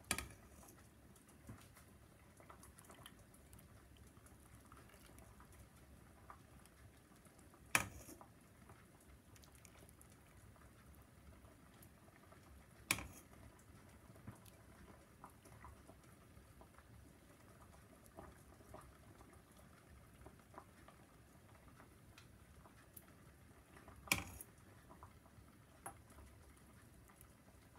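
Faint trickle and patter of hot sugar syrup ladled into a glass jar of canned pears. A few sharp clinks, several seconds apart, come from the metal ladle or jar.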